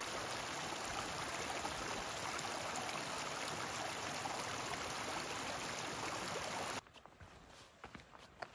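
Small mountain stream running over rocks, a steady rush of water that cuts off suddenly near the end. Faint footsteps on a stony trail follow.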